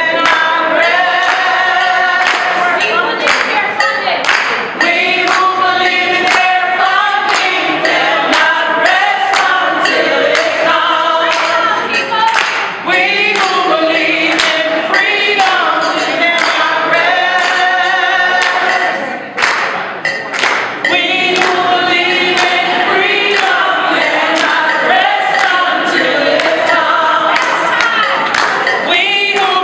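A group of people singing together without instruments, with hand claps keeping the beat.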